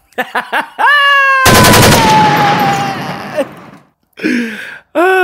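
A high cry, then about one and a half seconds in a sudden loud blast of noise like gunfire, with a long cry falling in pitch over it, fading away over about two seconds.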